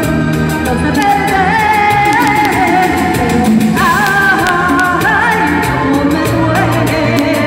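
A woman singing a song into a handheld microphone over amplified musical accompaniment with a steady beat.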